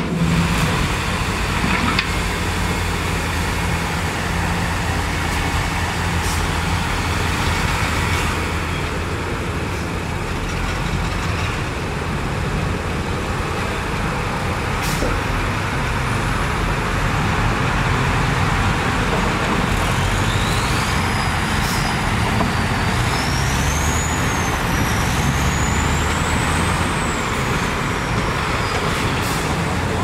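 Diesel engines of dump trucks running with a steady low drone as their beds tip out dirt. In the second half a thin, high whistle rises and falls over it.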